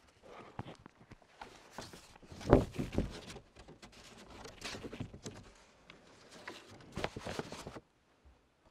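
Handling noise at a lectern microphone: papers rustling, with irregular knocks and bumps, the loudest a thump about two and a half seconds in.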